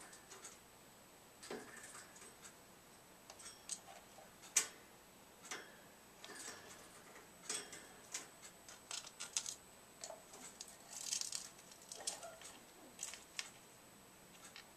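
Faint, irregular light clicks and taps of a parrotlet's beak and feet on metal cage bars and hanging toys as it clambers about the cage, with a denser cluster of taps around eleven seconds in.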